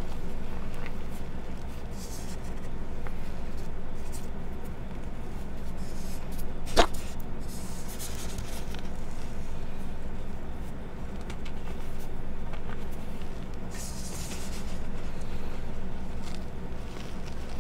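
Re-pressed gym chalk reforms being crushed and crumbled by hand: soft gritty crunching and rubbing that swells and fades in slow waves, with one sharp click about seven seconds in, over a steady low hum.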